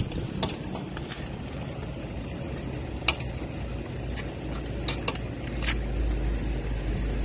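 Metal tyre-change tools, the car jack and lug wrench, clinking a few times in separate sharp clicks over a low steady rumble.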